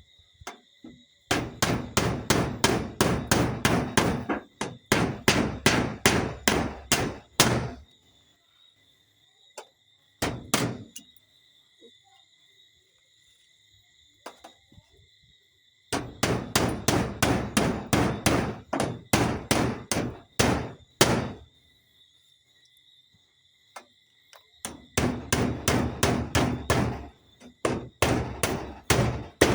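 A hammer driving nails in fast runs of sharp strikes, about four or five a second. There are five bursts with pauses between them; the shortest, about ten seconds in, lasts under a second.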